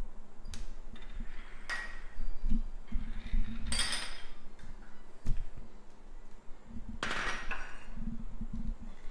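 Ceramic dishes and small ramekins clinking and clattering as they are handled and set down on a countertop: several separate sharp knocks spread across a few seconds.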